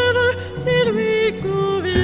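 Background music: a slow melody of held notes over a sustained accompaniment.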